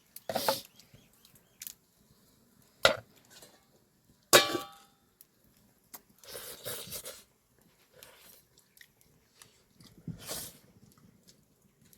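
A few separate knocks and clinks of kitchen utensils being handled, the loudest about four seconds in with a short metallic ring, with quieter rustling and clatter between.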